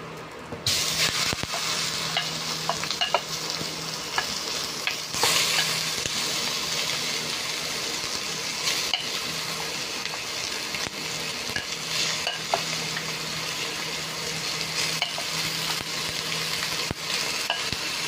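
Raw chicken pieces dropping into hot oil with sautéed onion and garlic in a stainless steel pan, setting off a sizzle that starts abruptly just under a second in and grows stronger about five seconds in, with scattered small clicks and taps.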